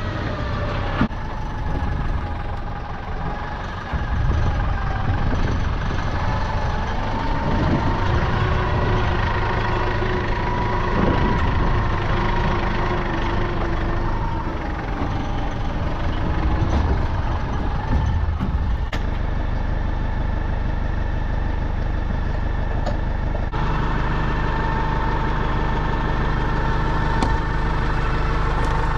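Farm machine's engine running steadily, with a whine that wavers in pitch above the drone. The engine note changes twice in the second half.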